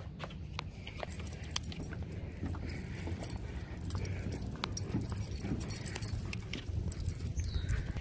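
Footsteps and small dogs' paws on a wooden walkway, with scattered taps and a light metallic jingle from leash and collar hardware over a low rumble.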